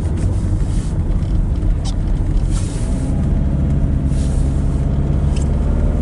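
Diesel car driving, heard from inside the cabin: a steady low rumble of engine and tyres, with the engine's hum coming through more clearly from about halfway through. A few brief hissing swishes sit over it.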